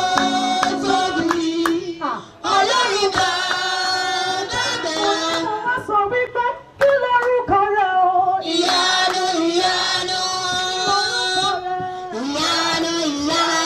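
Men's and women's voices singing a song together, with two short breaks, about two seconds in and about seven seconds in.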